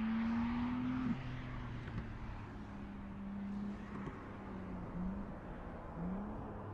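The BMW M3 Competition's twin-turbo 3.0-litre straight-six engine running steadily as the car drives by. Its note rises slightly, then drops about a second in, and dips briefly twice near the end.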